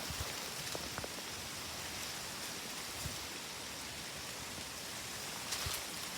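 Strong wind blowing through tree leaves: a steady rustling hiss, with a few faint ticks.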